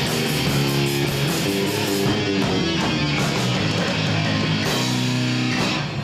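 Live heavy rock band playing: distorted electric guitars over bass and drum kit. The cymbals drop out about two seconds in, leaving the guitars ringing, and the full band crashes back in at the end.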